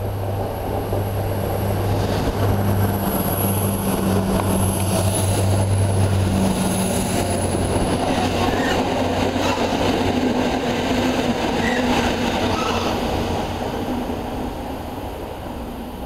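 An EWS Class 66 diesel-electric locomotive, with its two-stroke V12 engine, running light through a station. A steady engine drone and a thin high whine grow as it approaches. Engine and wheel noise swell as it passes close by in the middle, then fade as it draws away.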